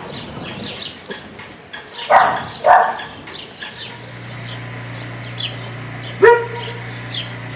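A dog barking: two barks about two seconds in and one more about six seconds in, with small birds chirping throughout. A steady low hum starts about four seconds in.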